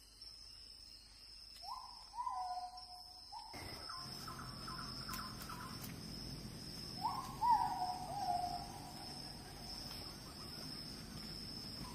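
Forest ambience: insects buzzing in a steady high drone while a bird calls twice, each call a short series of notes stepping down in pitch. About three and a half seconds in, a steady low rushing noise joins in.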